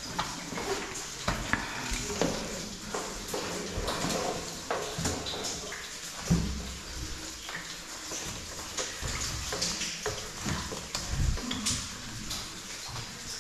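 Irregular metallic clinks and knocks of rappelling gear (carabiners and descender) and rope handling during a descent on rope, with one heavier knock about six seconds in.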